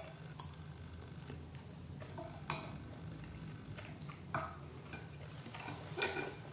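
Chopsticks clicking and tapping against a ceramic plate while picking up food: about four separate short knocks, each with a brief ring.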